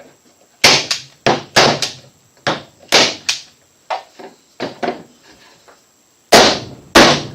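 A DeWalt carbon fiber composite manual staple gun firing brad nails into stacked thin wood: a string of sharp clacks, unevenly spaced, with a pause shortly before the end and the loudest strikes near the end.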